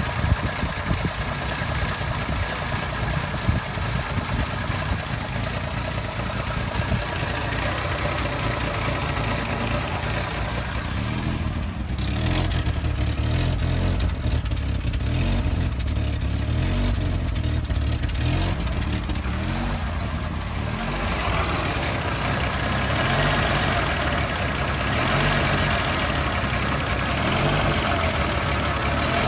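Toyota FJ60 Land Cruiser's 2F straight-six petrol engine idling roughly and unevenly. The tone shifts about twelve seconds in and again about twenty seconds in.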